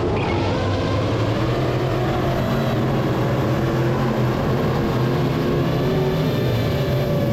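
Race car engines running steadily on a clay oval track, heard alongside the motor whine of a racing drone.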